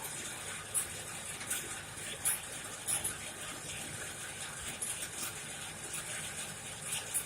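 Coal forge fire burning with a steady rushing hiss, with sharp crackles and pops at irregular intervals, while a knife blade heats for hardening.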